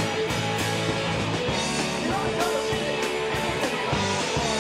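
Rock band playing: guitars and bass over a steady drum beat.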